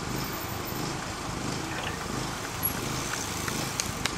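Steady outdoor background noise with a low rumble, and a few sharp clicks near the end.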